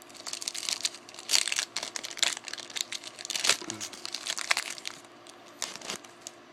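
A foil trading-card pack wrapper being torn open and crinkled in the hands, a dense run of irregular crackles that dies down for the last second or so.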